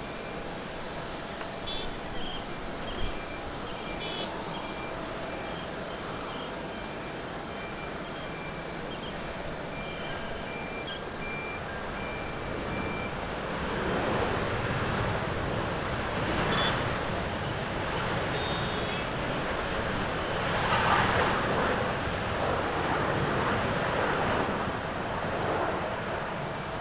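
Japan Airlines Boeing 787-8 landing, its GEnx turbofans heard as a steady jet rush at first. From about halfway the sound swells into a louder, pulsing rush of reverse thrust during the rollout, loudest about three-quarters of the way through.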